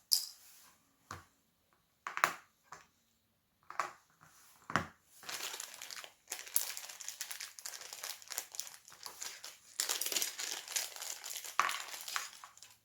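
A few sharp plastic clicks and knocks from handling the broken key fob casing, then about seven seconds of continuous crinkling of plastic packaging as the new fob casing is unwrapped.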